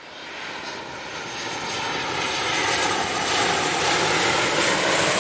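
Airplane engine roar sound effect that fades in over the first couple of seconds and then holds steady.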